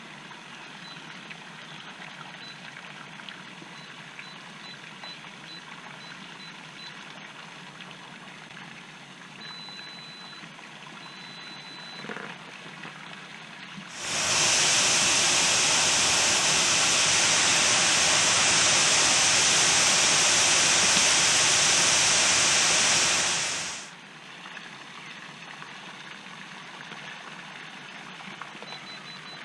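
Electronic door-lock keypad giving short high beeps as buttons are pressed during programming, some single and some held a little longer. About halfway through, a loud steady hiss cuts in, lasts about ten seconds, then stops abruptly.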